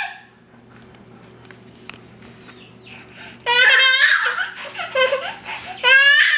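A toddler laughing in high-pitched squeals, in two loud bursts that start about halfway through after a quiet stretch.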